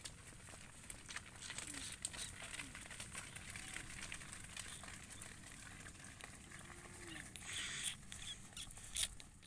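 Faint farmyard sound of a herd on the move: scattered clicks and crackles with a louder rustle near the end, and a few short, faint calls.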